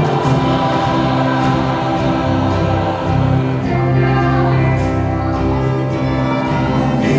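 Church choir singing with orchestra accompaniment, sustained chords held throughout.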